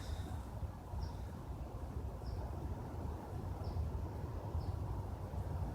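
Short high bird chirps, five of them about a second apart, over a steady low rumble.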